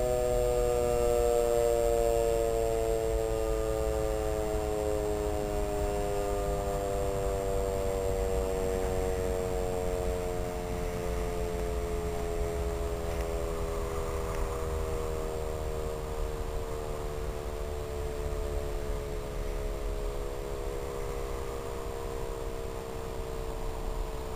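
DS 977 electric motor siren winding down during a fire-alarm signal test, its rising-and-falling siren tone sinking slowly and steadily in pitch as the rotor coasts.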